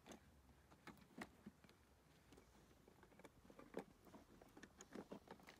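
Near silence, with faint scattered ticks and crackles.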